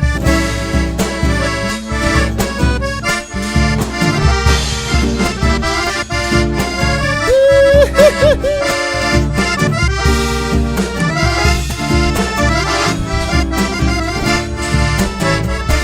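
Accordion-led cueca played live by a band: the accordion carries the melody over a bass line and a steady, even percussion beat, in the instrumental passage between sung verses.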